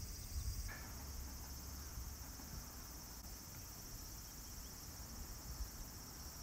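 Steady, high-pitched chorus of insects singing outdoors in summer, with a faint low rumble beneath it.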